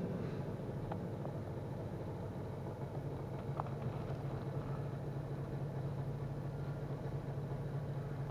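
Quiet mosque room tone: the echo of the recited verse dies away in the large hall about a second in, leaving a steady low hum and a few faint clicks.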